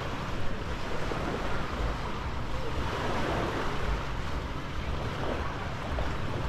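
Surf washing onto a sandy beach in a steady noisy wash, with wind buffeting the microphone in uneven low rumbles.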